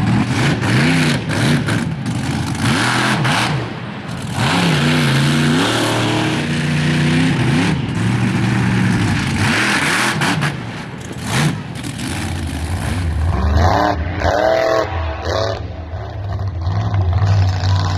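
Monster truck engine revving hard in repeated bursts, its pitch climbing and dropping as the truck throttles through wheelies on the dirt.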